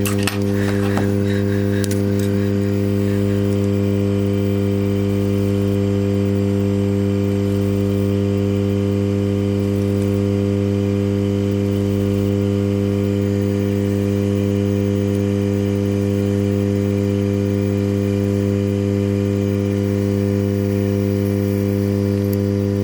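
Hot-air rework station running during processor desoldering: a steady low electrical hum with evenly spaced overtones over a faint hiss of blown air.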